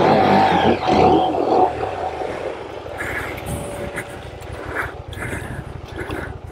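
Dirt bike engine revving hard for about the first two seconds, then dropping back to a steady low idle.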